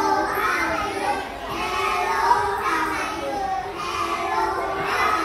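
A group of young children's voices in unison, in a sing-song chant broken into short phrases about a second long.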